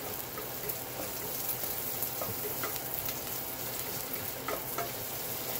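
Onion, garlic, ginger and Thai chili sizzling in hot oil in a stainless steel pot, stirred with a wooden spoon that scrapes and taps the pot now and then.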